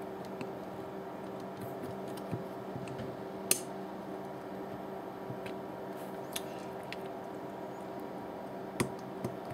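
A few small clicks and taps as a soldering iron tip works at the solder joints on the back of a circuit board, the sharpest about three and a half seconds in. A steady low hum runs underneath.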